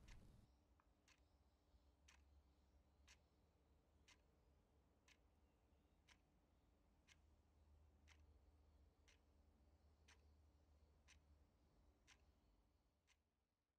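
Faint clock ticking steadily, about once a second, over a low hum that fades away near the end.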